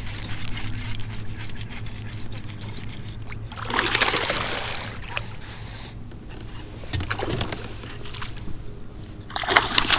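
Water splashing in two loud bursts, about four seconds in and again near the end, with a smaller splash between, over a steady low hum.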